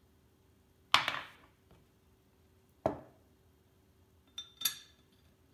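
Two sharp knocks, then two lighter clicks a little later, as the barrel retaining block is fitted into a Steyr AUG receiver. The block now seats without force.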